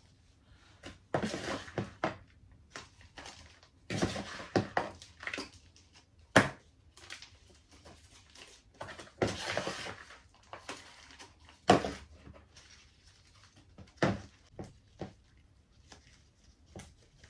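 Hands working potting soil into a thin plastic plant pot: irregular rustling and scraping of soil and plastic, with a few sharp knocks of the pot, the loudest about six and twelve seconds in.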